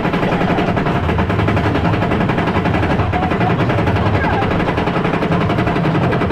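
Cobra's Curse spinning roller coaster car rattling along its steel track: a loud, rapid, continuous clatter of the wheels.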